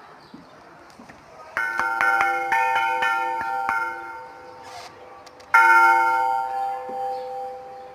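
Church bells ringing: a quick run of strikes on several bells about a second and a half in, ringing and fading, then another loud stroke about halfway through that rings on and dies away before cutting off abruptly at the end.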